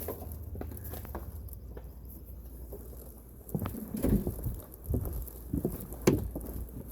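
Footsteps while walking, irregular thuds starting about halfway through with a sharp knock near the end, over a low rumble of handling noise on the microphone.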